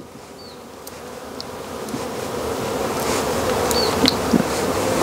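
Honeybees buzzing in a steady drone that grows louder over the few seconds, bees drawn by the smell of honey.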